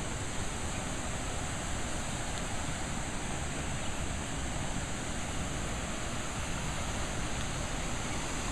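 A shallow, rocky mountain river rushing over stones: a steady, even rush of water with no breaks.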